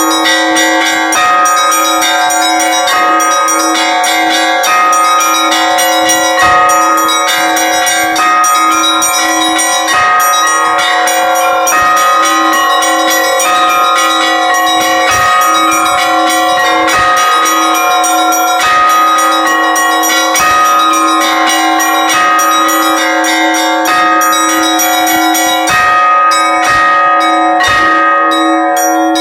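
Russian Orthodox church bells rung in a continuous peal: quick strokes on small bells over a lower bell struck at an even beat.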